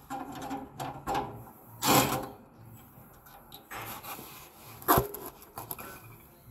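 Rustling and rubbing handling noises with scattered clicks as gloved hands work inside the open lower compartment of a heat pump water heater. The loudest are a brief scrape about two seconds in and a sharp click about five seconds in.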